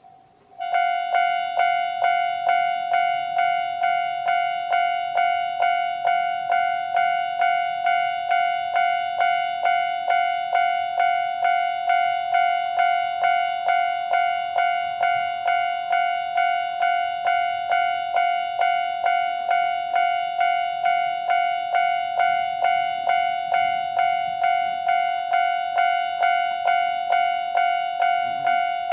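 Japanese railway level-crossing alarm, starting abruptly about half a second in and then sounding a steady electronic bell tone struck over and over at just under two strikes a second, warning that a train is approaching.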